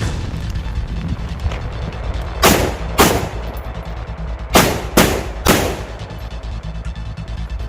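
Five 5.56 mm rifle shots: a pair about half a second apart, then three more in quick succession a couple of seconds later, each with a short echoing tail. Background music plays under them.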